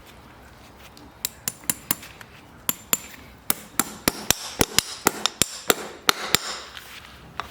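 Farrier's hammer striking metal: a run of about twenty sharp, ringing taps, starting slowly and quickening to three or four a second, then stopping about a second before the end.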